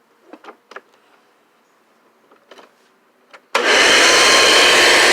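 A few faint handling clicks, then a Hoover Caddy Vac upright's 12-amp motor switches on abruptly about three and a half seconds in and runs loud and steady with a faint whine. The brush roll spins on a drive belt that is going bad.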